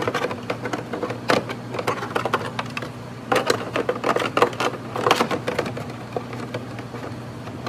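Irregular clicks and knocks of stiff plastic parts being pushed, flexed and seated by hand: an aftermarket fender duct and its bevel-edged mesh screen being worked into a C5 Corvette's fender vent opening.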